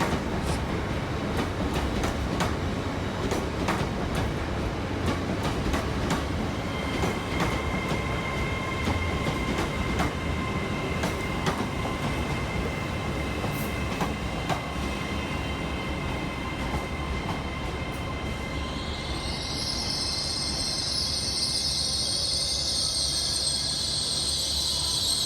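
Class 802 bi-mode train running in along the platform: wheels clicking over the rail joints, then a steady whine, and a loud high-pitched squeal in the last few seconds as it brakes to a stop. The squeal is described as very squeaky.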